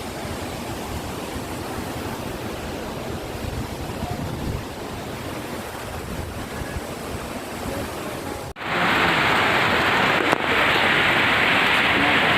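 A waterfall's steady rush of falling water. About eight seconds in, the sound cuts out for an instant and comes back louder and hissier.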